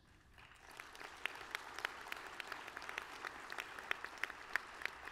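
An audience applauding: a wash of many hands clapping that builds over the first second, then carries on steadily.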